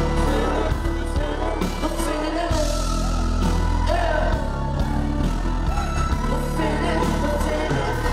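Live rock band playing loudly, with a singer's voice over heavy bass and drums.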